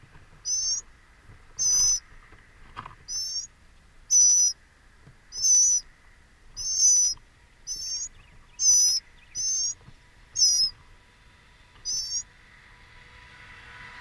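Small songbird calling at its nest: about a dozen short, high-pitched, wavering notes, roughly one a second. A faint rising hum comes in near the end.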